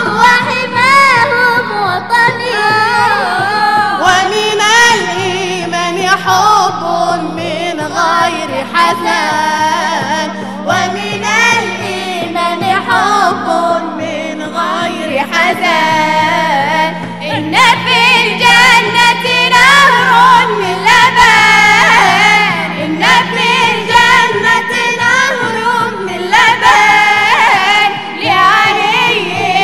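A mixed group of male and female voices singing an Islamic devotional inshad for the Prophet's birthday (Mawlid) together, over a frame drum beating a steady rhythm and a held low note.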